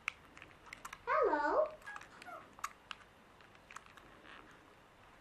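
A Fingerlings baby monkey toy says "hello" once in a high, squeaky recorded voice about a second in. Light clicks and taps of the toy being handled are scattered throughout.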